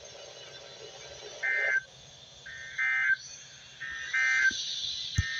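NOAA weather radios, including Midland units, sounding the short buzzy SAME digital data bursts (two alternating high pitches) that close the weather alert broadcast. The bursts come about four times, roughly once every second and a quarter. A small click near the end.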